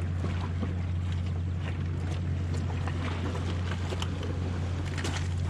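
A steady low mechanical hum that holds unchanged throughout, with scattered light ticks and clicks over it.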